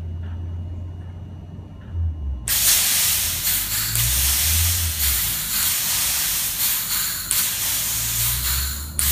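Nitrous purge solenoid venting nitrous oxide: a loud, steady hiss that starts abruptly about two and a half seconds in. It is triggered by the engine management's purge-control output once the throttle position enters the set window.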